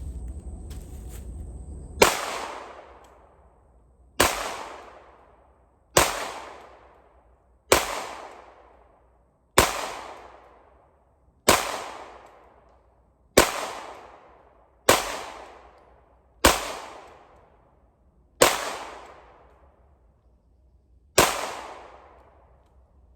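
Eleven single shots from a 9mm Polymer 80 Glock 17/19-style pistol, fired slowly about every two seconds, each shot followed by a long echo. The slow pace comes from the slide failing to return fully into battery after each shot, so it has to be pushed closed by hand; the owner blames a weak recoil spring.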